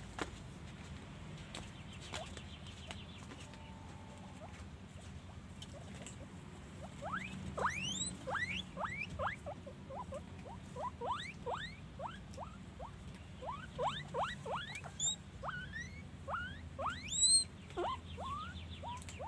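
Guinea pig wheeking: a long run of short, sharply rising squeals, several a second, starting about seven seconds in.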